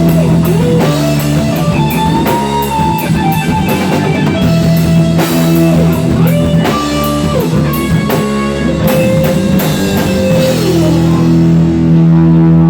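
Rock band jamming: a lead guitar holds and bends long notes over a drum kit keeping a steady beat on cymbals. About eleven seconds in, the drums drop out and the held chord rings on.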